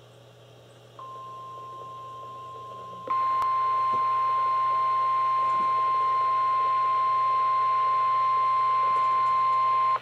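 NOAA Weather Radio warning alert tone, one steady tone near 1050 Hz, sounding from weather radio receivers during a required weekly test. It comes on faintly about a second in, jumps much louder about three seconds in, and cuts off sharply at the end, over faint radio hiss.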